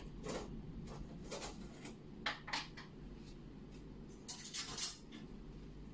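Quiet room with a low steady hum and a handful of faint, short clicks and light clinks, scattered through the pause.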